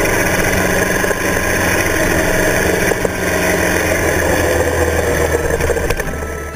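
Kawasaki Z-series air-cooled DOHC inline-four motorcycle engine running steadily under way, recorded close to the engine with wind and road rush mixed in; it fades away near the end.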